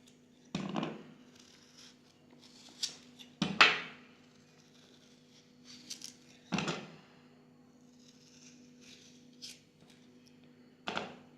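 Knife cutting through raw peeled taro root, several short crisp cuts at irregular intervals a second or more apart.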